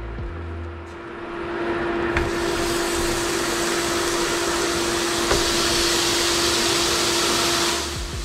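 Burger patties sizzling as they are laid into a hot cast iron honeycomb non-stick frying pan. A steady hiss starts about two seconds in and drops away shortly before the end. A steady hum from the induction burner runs underneath.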